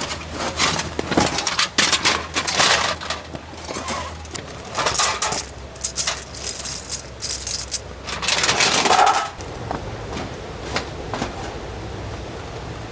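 Metal gear clinking and clattering: a run of sharp knocks and jingles, some ringing briefly, densest in the first half and again about nine seconds in, over a low steady hum.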